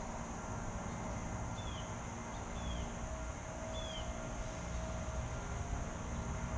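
Outdoor pond-side ambience: a steady high drone of insects over a low, even rumble, with three short falling chirps, likely from a bird, about a second apart in the first half.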